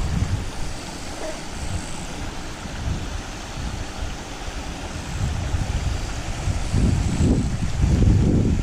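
Wind buffeting the microphone in uneven low gusts that grow stronger near the end, over a steady faint hiss.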